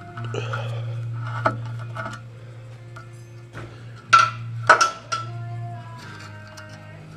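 A few sharp metallic clinks as small fasteners are worked out of a brass nameplate on a cast-metal saw base and the plate is lifted free. The two loudest clinks come just past the middle, over steady background music.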